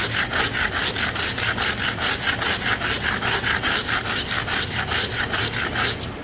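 Steel 125-grain Cutthroat single-bevel broadhead scraped back and forth on a concrete slab, about five even strokes a second, stopping just before the end. The concrete is grinding the rough factory edge down to the bevel.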